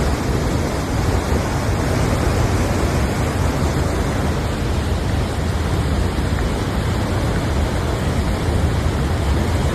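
Steady, loud rushing of a lahar, a torrent of mud and ash-laden water, pouring down a waterfall, with a deep rumble underneath.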